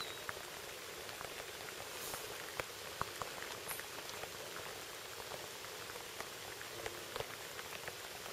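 Steady rain falling on a pond: a continuous hiss with many scattered sharp drop ticks.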